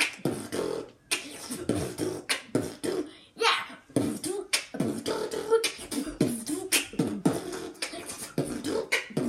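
A boy beatboxing: quick mouth-made drum hits and clicks, several a second, mixed with short sliding vocal tones.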